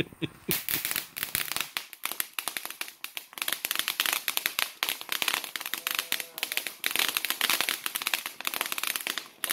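Consumer firework going off on the ground, crackling with a dense, rapid run of sharp pops that starts about half a second in and keeps going without a break.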